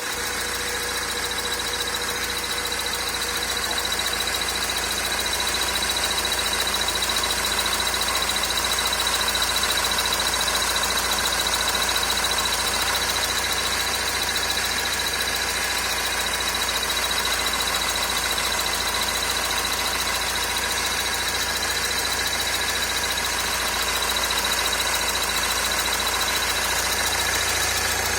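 Honda FR-V's 2.2 i-CTDi four-cylinder turbodiesel running steadily, with a constant high-pitched whine over the engine noise: the strange sound the owner is showing, of unknown cause.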